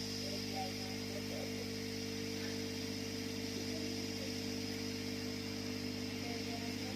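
Hot air rework gun blowing steadily, a continuous hum with hiss, while it heats the circuit board to solder the battery connector.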